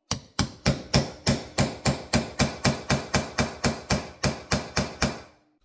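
A hammer tapping a punch held on a steel part of a Mitutoyo height gauge, which rests on a wooden block. It is a steady, even run of about eighteen strikes at about three a second, stopping about five seconds in.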